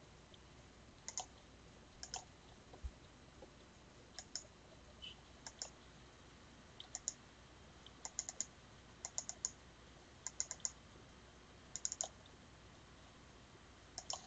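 Computer mouse clicking: sharp, brief clicks, single and in quick pairs or small clusters, coming more often in the second half, over a faint steady room hiss.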